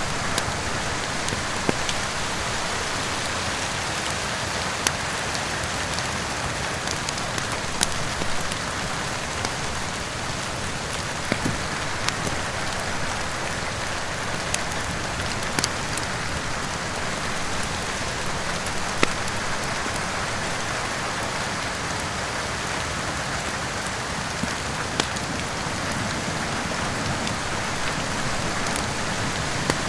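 Steady heavy rain, with occasional sharp pops from a crackling wood fire in a fireplace scattered through it.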